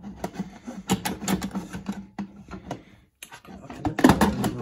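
Plastic pressure-cooker lid of a Ninja Foodi being fitted onto the pot: a run of irregular clattering clicks and knocks, loudest near the end.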